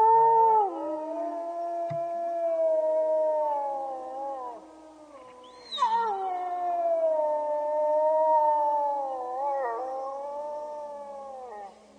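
Several wolves howling together, with long overlapping howls held at different pitches. The chorus eases off around the fifth second, then a new howl cuts in with a sharp drop in pitch and the howls run on, slowly sliding lower.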